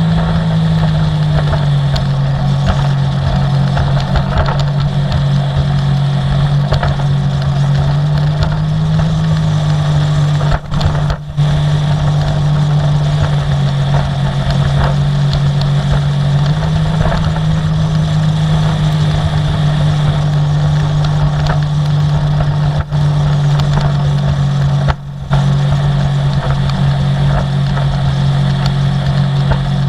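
Sea-Doo personal watercraft engine running at a steady cruising pitch, with a rush of water and wind over it. The sound drops out briefly a few times, around 11 seconds in and again around 25 seconds.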